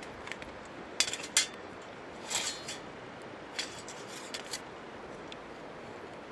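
Hard objects being handled: a quick run of sharp clinks about a second in, a short scrape at about two and a half seconds, and a few lighter clicks after that, over a steady background hiss.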